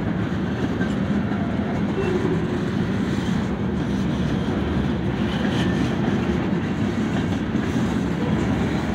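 Freight train's gondola cars and a flatcar rolling past, a steady low rumble of steel wheels on the rails.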